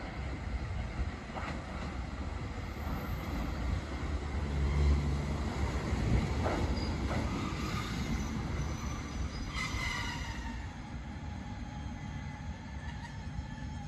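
JR Hokkaido 721 series electric train running into the platform and slowing to a stop, the wheels rumbling on the rails. About two-thirds of the way in, a high squealing whine of several tones sets in and drops slightly in pitch as the train brakes, then holds.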